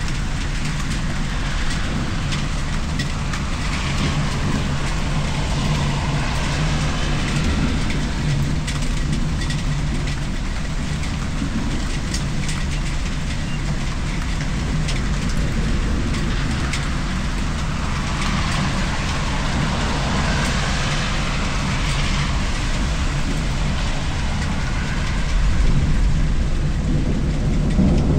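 Rain falling steadily, with the swish of a vehicle passing on a wet road twice. A low rumble of thunder builds near the end.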